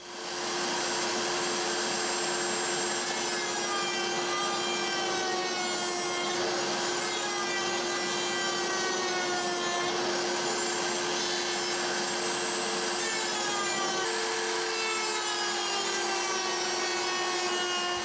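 A router in a router table running steadily, its small drawer lock bit cutting half-inch drawer stock, with a strong steady hum and a whine over it.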